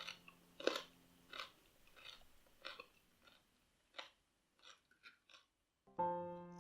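Crisp, crunchy chewing of a raw vegetable salad of asparagus, sugar snap peas and radish, about ten bites in a steady rhythm that grow fainter. Soft piano music fades out early and returns near the end.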